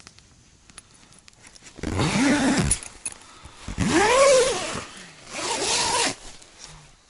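Tent door zipper pulled by hand in three long strokes, each rising and then falling in pitch, with a few light clicks of handling before the first pull.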